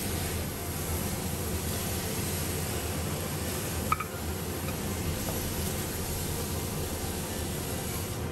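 Steady rushing noise, like a kitchen extractor fan, with one short metallic ping about four seconds in.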